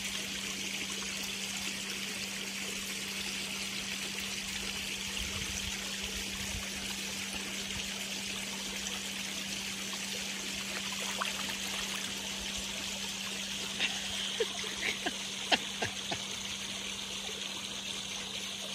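Steady trickle and splash of a pond waterfall running into a koi pond, with a steady low hum underneath. A few light taps or splashes stand out between about 14 and 16 seconds in.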